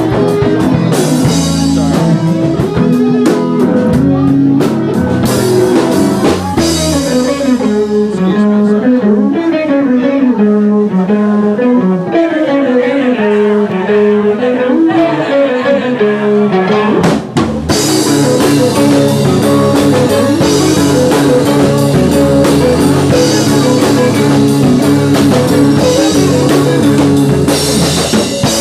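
A rock band playing live with no singing: guitar, bass and drum kit. The cymbals drop back through the middle while the guitar line carries on, and after a short break about 17 seconds in the full band comes back in with cymbals.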